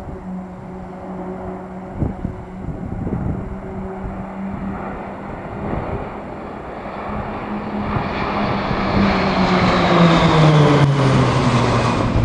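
A formation of six RAAF Roulettes Pilatus PC-9/A turboprop trainers flying past, their propeller drone growing louder over the last few seconds and falling in pitch as they pass overhead.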